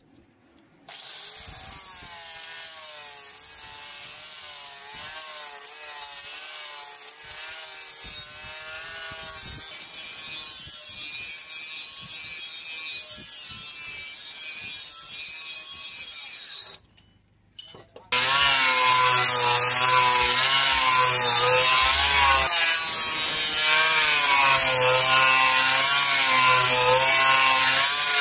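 Handheld angle grinder with an abrasive disc grinding the steel face of a sword blade, running with a wavering whine as the load shifts. It cuts out briefly about 17 seconds in, then comes back much louder and harsher for the rest of the time.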